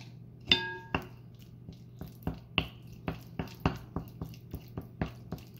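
A wooden spoon mashing and stirring soft cream cheese and butter in a mixing bowl, knocking against the bowl in irregular taps about two or three times a second. A sharper knock about half a second in sets the bowl ringing briefly.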